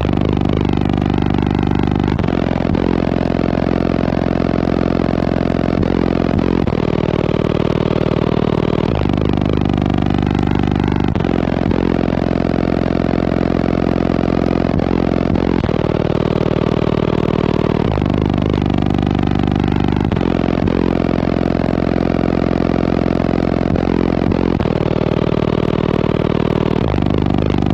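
Bass-heavy music played very loud through a car audio system with Sundown Audio subwoofers on Crescendo amplifiers. Deep held notes shift every few seconds in a repeating pattern.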